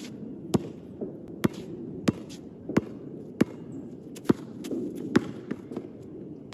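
A basketball being dribbled on a hard outdoor court: about ten sharp bounces at an uneven pace, over a steady low background noise.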